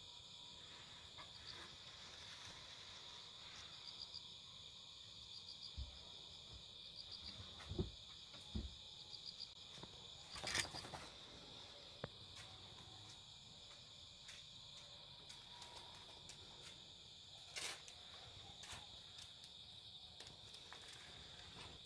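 Crickets chirping in a steady high trill, with a few soft knocks and rustles, the loudest about halfway through.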